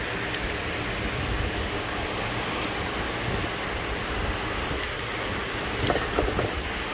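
Steady hiss and low rumble of background noise, like a fan or air conditioning running, with a few faint light clicks and a short cluster of small knocks about six seconds in.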